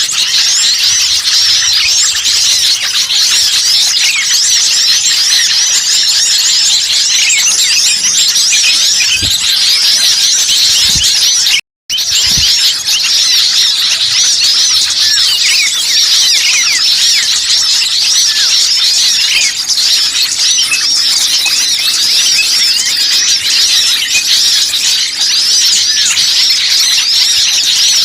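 A dense chorus of many small birds chirping and chattering at once, with rapid high, overlapping calls: a 'noisy small birds' lure recording meant to draw in wild birds. The sound cuts out for a split second near the middle.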